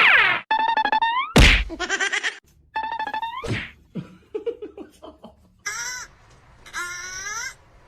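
Comedy sound effects: quick sliding tones and a heavy thunk about a second and a half in, then three short calls that bend in pitch near the end.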